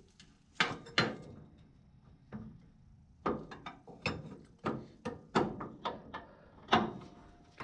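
Irregular metal clinks and knocks of a socket and long extension being worked up onto the steering bell crank nut, about a dozen sharp strikes, the loudest about half a second in, at one second and near the end.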